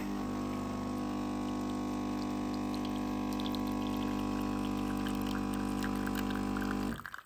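Siemens EQ 500 bean-to-cup espresso machine running with a steady hum while it brews a small espresso. It cuts off abruptly near the end as the shot finishes.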